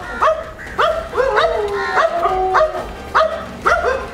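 Dogs barking in a steady run of short, sharp barks, about two a second.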